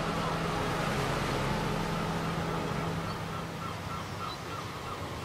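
Held music notes fade out over the first couple of seconds, leaving a steady wash of sea surf with birds calling in short repeated cries from about three seconds in.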